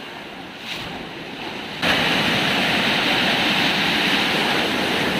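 Ocean surf washing on a beach, a steady roar of broken waves with wind buffeting the microphone. It cuts in abruptly about two seconds in, after a quieter stretch of faint noise.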